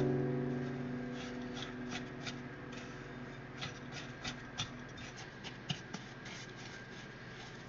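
Faint rubbing and a few light clicks from hands at work, with no steady rhythm. Under them, a held piano chord from the background music dies away over the first two seconds or so.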